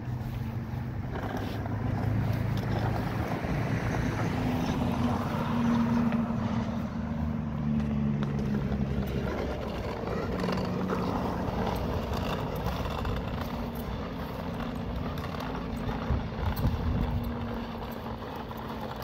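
A motor vehicle engine running, its low hum swelling to its loudest about six seconds in, shifting in pitch and then fading.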